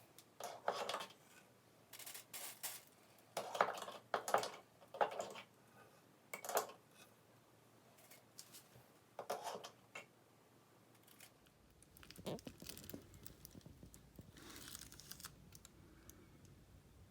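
Needle-nosed pliers scraping and clicking against the drain's brass crossbars while debris is pulled out of a clogged bathtub drain. The sounds are short, faint and come at irregular intervals, with a few more near the end.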